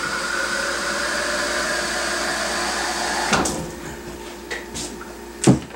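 Kitchen tap running into a plastic cup, a steady rush of water that stops with a click about three seconds in. A few light knocks follow, then a louder thump near the end.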